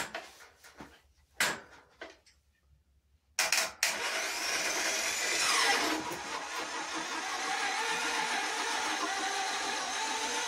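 A few knocks, then about three seconds in a starter-motor reverser (worm-drive gear and V-belt to the diff) switches on and runs with a loud, strained whine and grind, sounding like it's in pain, as it drives the car backwards. It is fed from a flaky, barely 12-volt battery, and one of its tones drops in pitch about two seconds after it starts.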